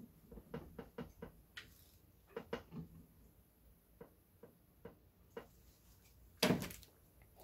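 Faint clicking of a hand ratchet on the crank bolt, turning a small-block Chevy engine over by hand toward top dead center, with scattered tool knocks and a louder clatter near the end.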